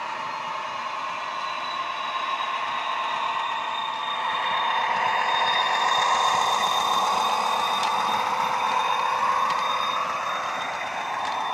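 Bachmann Class 43 model diesel locomotive running with a Loksound 5 sound decoder, its recorded diesel engine sound played through a small megabass speaker, together with the model's running gear on the track. It grows louder as the model passes close, loudest about halfway through, then eases off, with a few light clicks near the end.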